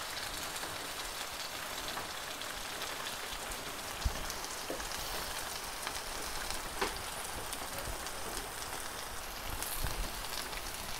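Diced potatoes with freshly added onion and garlic sizzling steadily as they fry in fat in a cazuela, with two light clicks about four and seven seconds in.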